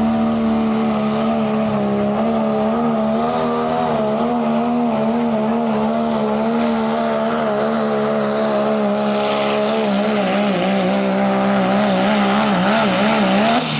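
Turbo-diesel pickup truck engine running flat out under load while pulling a weight-transfer sled, with a steady high-pitched note. The note wavers in the last few seconds and drops right at the end as the pull finishes.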